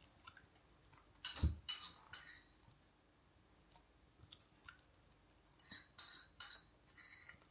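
A metal spoon clinking against a dish and against a dog's teeth as the dog is hand-fed from it. The clinks come in two short clusters, about a second in and again about six seconds in, with a dull thump in the first.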